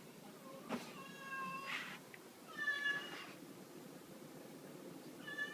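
A cat meowing three times: two calls of about a second each, a second apart, and a third starting near the end. A sharp tap comes just before the first call.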